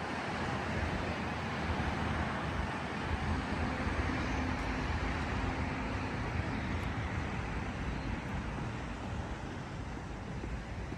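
A motor vehicle passing close by: engine rumble and road noise swell up, hold, then slowly fade away.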